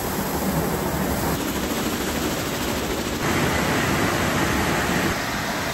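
Automatic car wash running: a steady rushing noise of the wash at work on the car, which gets louder about three seconds in.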